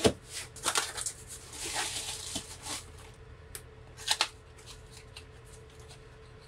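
Speaker parts being handled during a tweeter swap: sharp clicks and knocks, a stretch of rustling about a second and a half in, and a couple more clicks about four seconds in.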